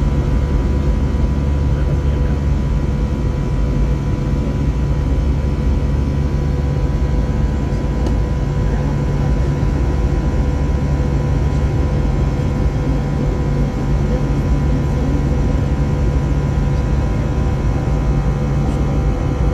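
Steady cabin noise of an Airbus A320 climbing out: a deep, even rumble of jet engines and airflow with a few constant humming engine tones over it, heard from a window seat.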